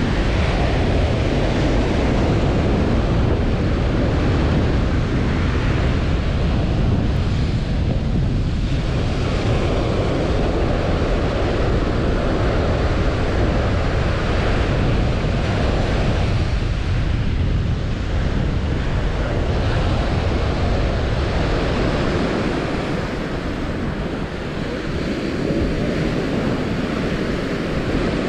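Surf breaking and washing up a sandy beach in slow swells, with wind buffeting the microphone; the wind rumble eases for a few seconds near the end.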